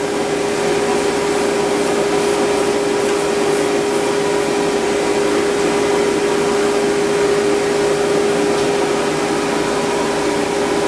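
Speedy stand pet dryer blowing hot air for fluff drying a poodle's coat, running steadily as a rush of air with one held humming tone.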